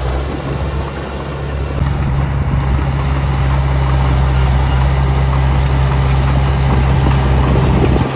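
Heavy diesel engine of earthmoving machinery running steadily: a loud, low drone with a dense rattle and hiss over it.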